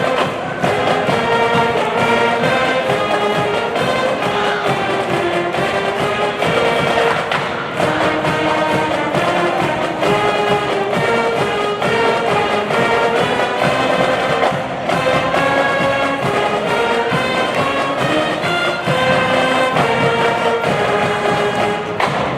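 Brass-heavy band music playing continuously, many held notes changing in steps.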